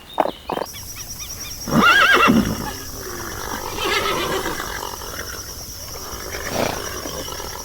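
Horse whinnying: a loud, shaky call about two seconds in, then quieter calls around four and near seven seconds, over a steady background hiss.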